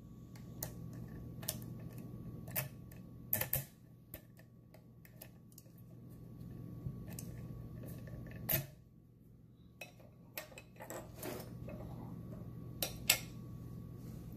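Irregular sharp metal clicks and knocks from a Mul-T-Lock Interactive+ dimple lock cylinder and its key being handled in a small vise, the key worked in and out of the keyway. A faint steady low hum lies underneath.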